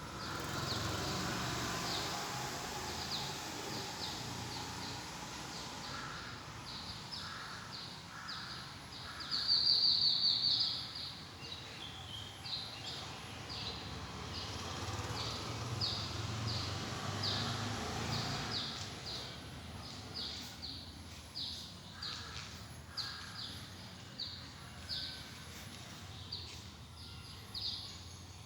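Birds calling: a short, high chirp repeated about once or twice a second, a louder, longer run of chirping about ten seconds in, and a few lower calls.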